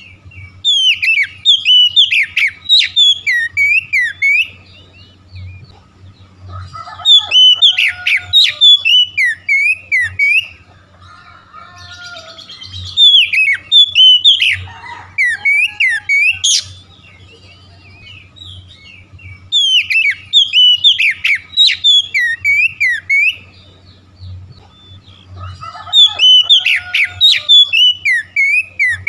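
Oriental magpie-robin (kacer) singing loud, rapid phrases of varied whistles and chirps. The song comes in five bursts of about three to four seconds each, with short pauses between, over a faint steady low hum.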